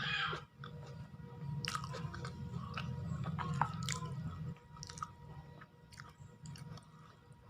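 A person chewing and biting food close to the microphone, with small wet mouth sounds and crisp clicks. The chewing is heaviest for the first four and a half seconds, then lighter.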